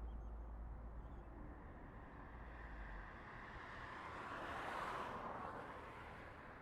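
Road traffic with a vehicle passing by, its noise swelling to a peak about five seconds in and then fading, over low wind rumble on the microphone during the first half.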